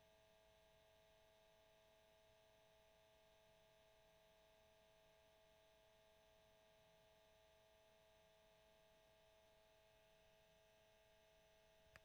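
Cassette tape motor running: a faint, steady whine made of several held tones that does not change.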